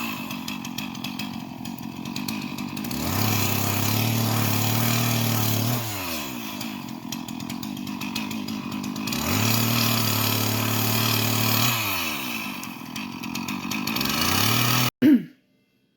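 Gasoline chainsaw cutting firewood: the engine revs up to full speed and holds for about three seconds through a cut, then drops back to idle, over and over. The sound cuts off suddenly near the end.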